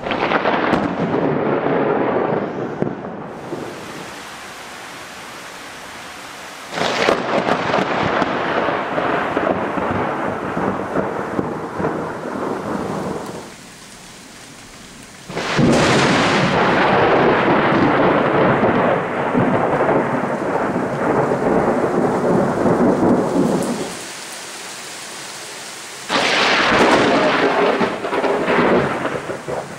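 Thunder from four close lightning strikes, each starting with a sudden loud crack and rumbling on for several seconds. Steady rain is heard in the quieter gaps between them.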